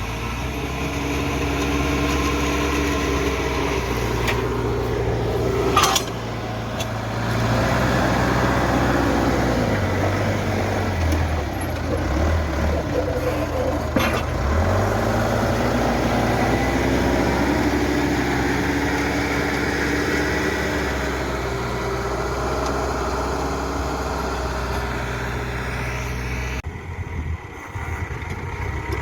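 Backhoe diesel engine running and revving up and down under load while digging. A few sharp metallic clanks come through, and the engine eases off near the end.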